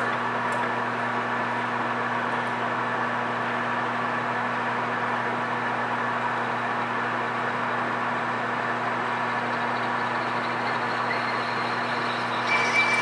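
PM1660 manual engine lathe running steadily at 275 RPM with a constant hum, as a 1 3/16-inch HSS Morse-taper drill is fed from the tailstock into a 6061 aluminum bushing blank. Near the end the cutting gets louder, with a thin high whine.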